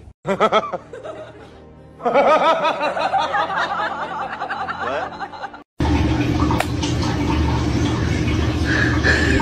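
Laughter: a run of quick, repeated chuckles that cuts off abruptly about two-thirds of the way through, followed by a steady low hum with a single click.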